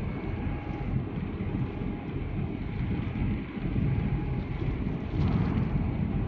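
Wind buffeting the microphone over open water: a steady low rumble that comes in gusts, with a stronger gust about five seconds in.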